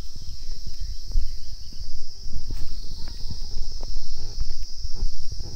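Footsteps on the gravel ballast of a railway track, irregular steps over a steady high-pitched drone of insects.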